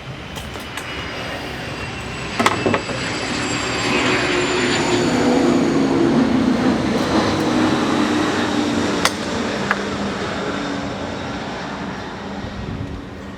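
A passing vehicle's rumble that swells to a peak around the middle and then fades, its faint whine falling slowly in pitch. A few sharp metallic clicks sound over it, twice near the start and once past the middle.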